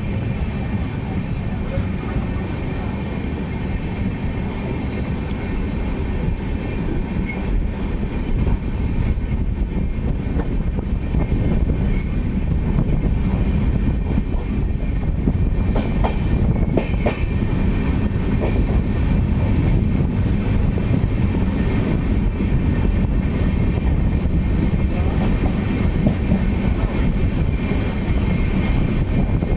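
Freight train of tank wagons running past close alongside on the next track: a steady noise of steel wheels on rails that grows louder about eight seconds in.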